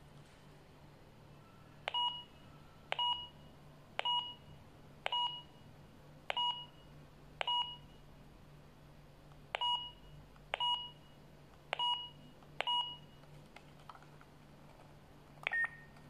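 KOMVOX GT60 walkie-talkie giving ten short two-tone key beeps, each with a click as a button is pressed, about one a second with a short pause midway. Near the end comes one click and a single higher beep as the side push-to-talk key is pressed.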